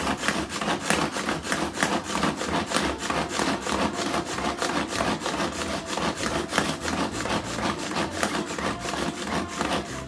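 Hand-pull cord food chopper pulled over and over, its spinning blades whirring and rattling as they chop vegetables, in a fast, steady rhythm of pulls.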